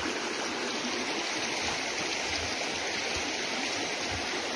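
A rain-swollen, muddy creek rushing steadily over stones and rocks.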